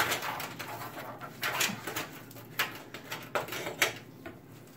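Power supply cables being handled and pushed through the case's routing holes: irregular rustles, scrapes and light clicks of cable and plastic against the case.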